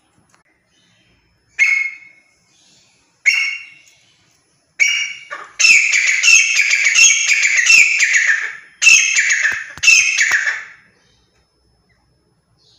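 Grey francolin (teetar) calling: three short single calls about a second and a half apart, then a fast, loud run of repeated ringing call notes for about five seconds that stops abruptly.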